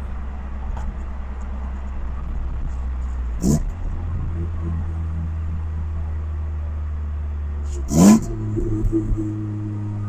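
1991 Honda Accord CB7's four-cylinder engine running steadily on the road. About three and a half seconds in the revs rise briefly; about eight seconds in there is a louder quick rev, after which the engine holds a higher pitch, as on a downshift.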